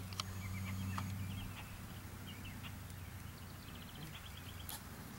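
Faint birds chirping over a low steady hum, with a few sharp clicks about a second in and near the end.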